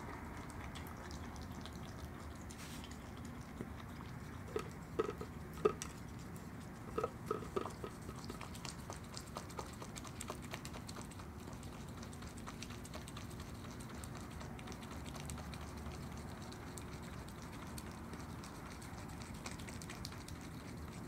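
Virginia opossum chewing and biting at an ice cream drumstick cone: soft wet smacking with small clicks, and a run of louder crunches and clicks about four to eight seconds in.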